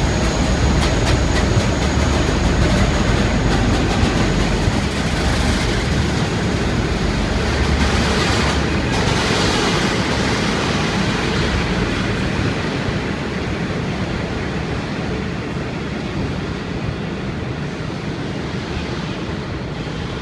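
V/Line N-class-hauled passenger train rolling out on departure, its wheels clicking over the rail joints, with a steady rumble that slowly fades as it pulls away.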